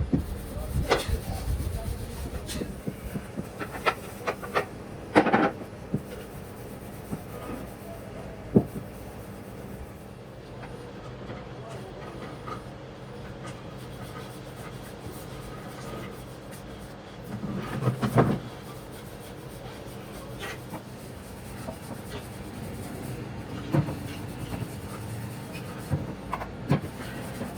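Wood being worked by hand: rubbing and scraping with scattered knocks, loudest about five and eighteen seconds in, over a steady low hum.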